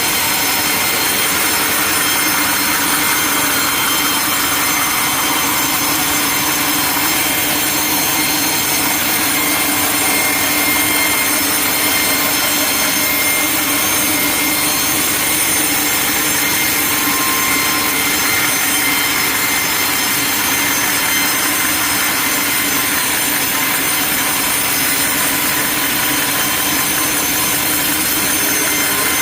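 Sawmill saw cutting lengthwise through a log: a steady, unbroken machine noise with a constant whine.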